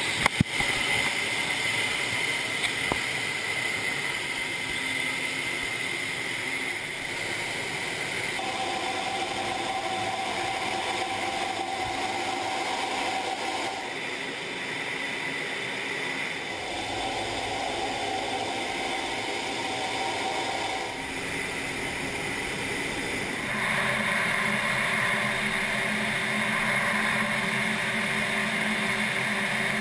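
Steady jet engine and rushing airflow noise heard inside a fighter jet cockpit, with a steady whine over it. The mix of tones changes abruptly several times, and there are a couple of sharp clicks right at the start.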